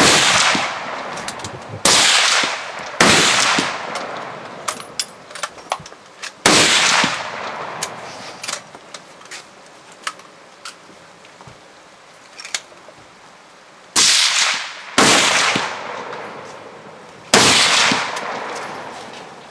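Centrefire hunting rifles firing on a covered shooting range: about seven loud shots at uneven intervals from several shooters, each with a ringing echo under the roof, and small clicks between the shots.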